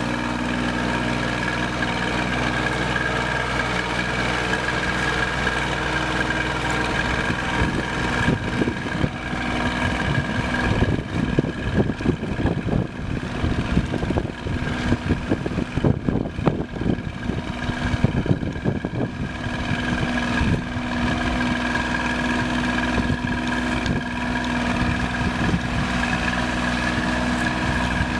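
John Deere 750 tractor's diesel engine running steadily as the tractor drives off. From about eight to twenty seconds in, wind buffets the microphone in rough crackles over the engine.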